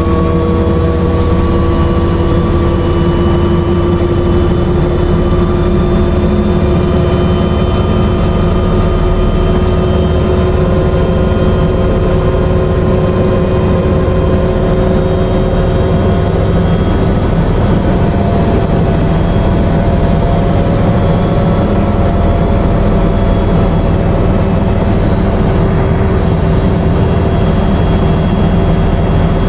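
Helicopter's turbine engine and rotor running on the ground before take-off: a dense low rotor drone under a turbine whine that rises slowly in pitch.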